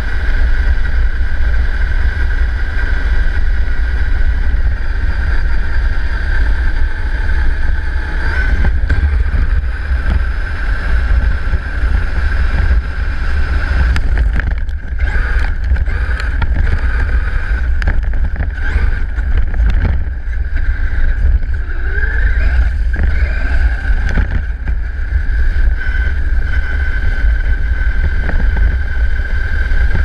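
Onboard audio of a Traxxas Summit 4x4 RC truck driving over gravel: the electric motor and gearbox give a steady high whine over a heavy rumble of tyres and chassis on the stones, with a few knocks from bumps around the middle.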